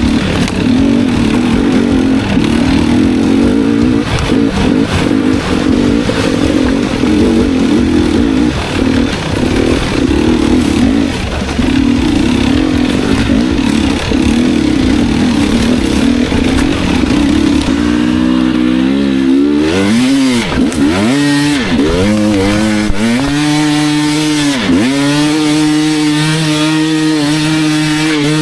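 250cc enduro dirt bike engine running hard on the trail, its note rising and falling with the throttle. About 18 seconds in the note turns clearer and swoops down and back up several times as the throttle is closed and opened again.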